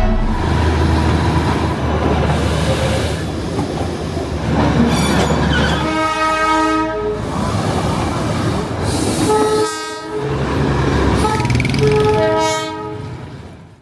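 Darjeeling toy train running with a steady low rumble, then sounding its horn in several blasts from about six seconds in. The sound fades out at the end.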